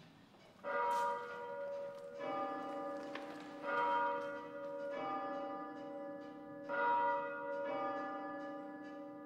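Church bells ringing: six strikes about a second and a half apart, two bells of different pitch taking turns, each hum ringing on under the next and fading away near the end.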